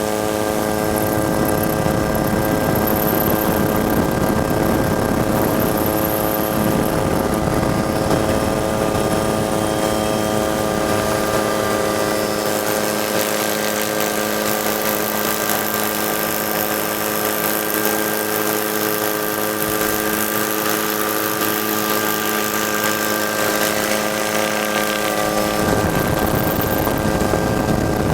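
Helicopter drone heard from on board: the engine and rotor gearing give a steady hum of several fixed tones that never change pitch, with a hiss over it. The deepest tone drops away about three seconds before the end.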